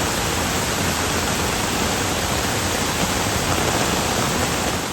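Steady, loud rush of water from a rain-swollen storm torrent pouring down the mountainside riverbed, fading away at the very end.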